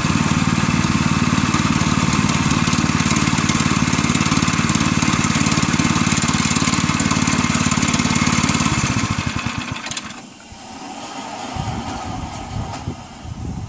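The Woodland Mills HM122 sawmill's small gas engine running steadily, then shut off about nine seconds in, its beat slowing as it winds down. After that come a few light knocks and rattles.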